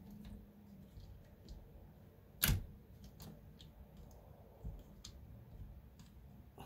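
Small clicks and taps of RC crawler parts being handled as a shock absorber is fitted onto the rear axle, with one sharp, louder click about two and a half seconds in.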